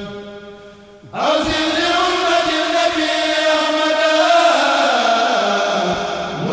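Men of a kourel chanting an Arabic khassida in a melodic chant. A held note fades in the first second, then a new line of the chant begins about a second in.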